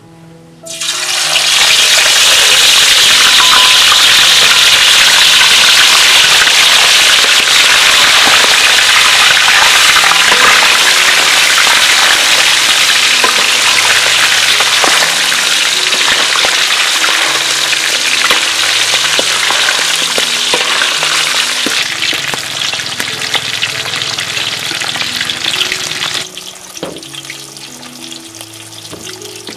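Whole fish dropped into hot oil in a wok: a sudden loud sizzle about half a second in that goes on strongly and slowly eases, then drops off sharply near the end.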